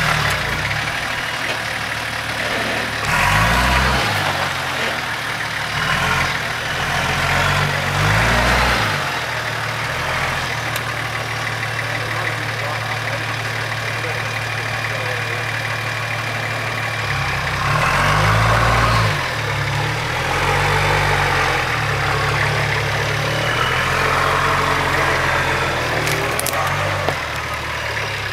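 Nissan GQ Patrol's engine working at low speed off-road, the revs rising several times and dropping back between them as the 4WD crawls up a rutted track.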